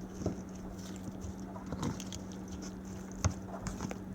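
A utensil stirring a partly thawed frozen entree in its plastic tray: irregular scraping and clicking, with bits of ice still crunching in the food because it has not fully heated through.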